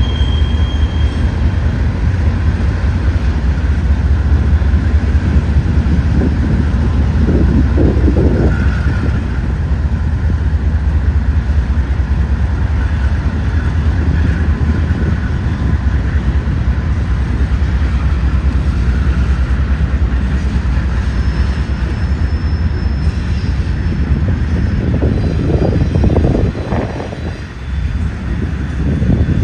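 Norfolk Southern freight train passing close by: the diesel locomotives and then the freight cars rolling by with a heavy, steady rumble. The loudness dips briefly near the end.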